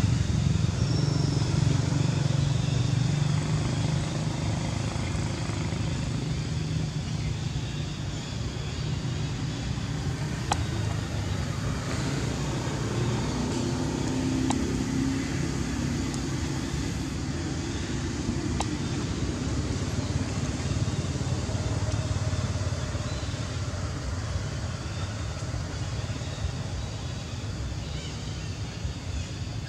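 A steady low background rumble with a faint hiss, slowly fading toward the end.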